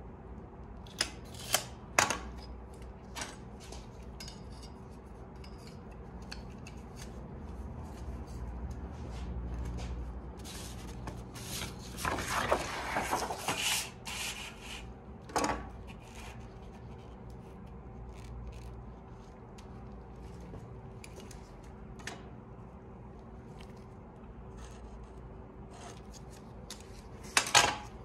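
A large template sheet being cut and handled on a steel table: scissor cuts and the sheet rubbing and sliding across the metal, with scattered sharp clicks. The loudest parts are a longer rustling stretch about halfway through and a sharp burst near the end.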